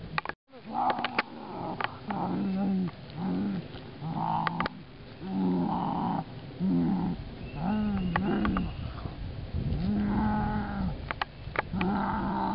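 A person's voice making animal noises: a string of about ten short, raspy growling roars, each under a second long, one after another.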